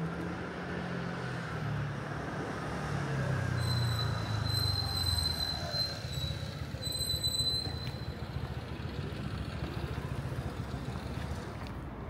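A train running past, its low hum falling in pitch over the first half, with a high steady whine, broken once, for about four seconds in the middle.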